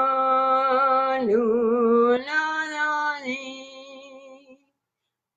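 A woman's solo voice singing long, drawn-out notes of a wordless chant refrain ('lula, li'). The pitch steps up about two seconds in, and the voice fades away shortly before the end, leaving a brief dead silence.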